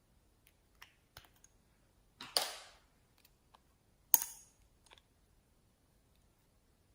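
Slime being pressed and squished by hand, giving scattered soft clicks and two louder sharp pops, about two and four seconds in, each trailing off briefly.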